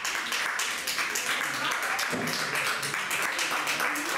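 Spectators applauding, many hands clapping densely, with voices mixed in.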